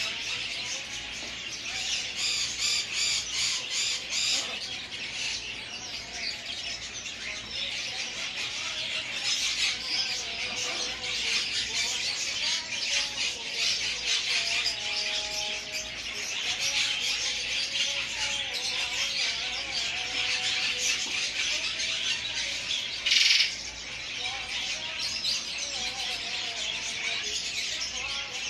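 A dense chorus of many small birds chirping and squawking without pause, with a few lower gliding calls. One short, louder noise cuts in about two-thirds of the way through.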